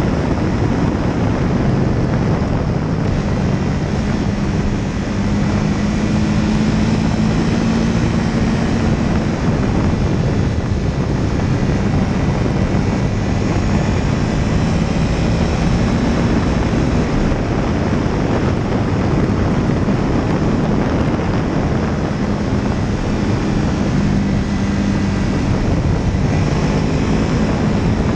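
Small propeller aircraft engine running steadily in flight, its hum drifting slightly in pitch, under heavy wind noise on the microphone.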